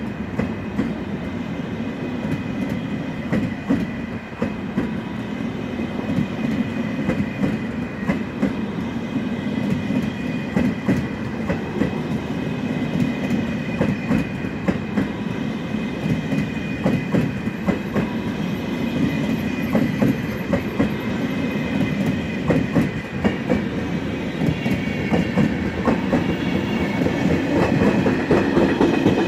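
Russian Railways passenger coaches of the Nice–Moscow express rolling past on the track, a steady rumble with quick clickety-clack of wheels over rail joints. It grows louder near the end.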